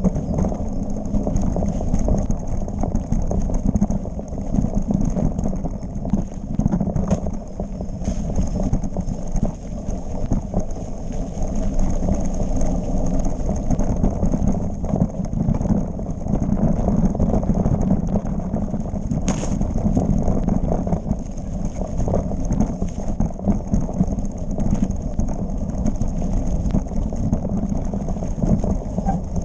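Mountain bike descending a rough dirt trail, heard from a handlebar-mounted camera: a continuous rattle and clatter of the bike and its mount over the bumpy ground, with tyre noise on dirt. A steady high-pitched whine sits above it.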